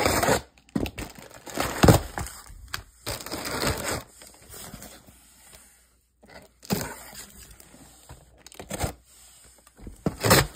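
Box cutter slicing the packing tape along the seam of a cardboard shipping box, with scraping and rustling of the cardboard as it is handled. Several sharp knocks stand out, the loudest about two seconds in and another near the end.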